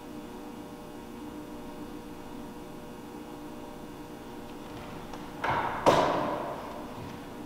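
A short scrape, then one sharp knock as an object is set down on the altar, its sound dying away in the church's echo; a faint steady room hum underneath.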